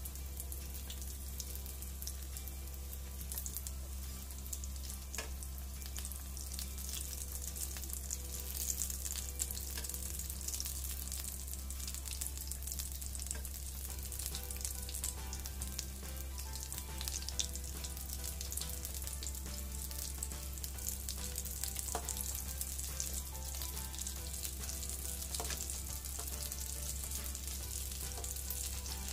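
Samosas deep-frying slowly in hot oil over a low flame: a steady sizzle made of many fine crackles.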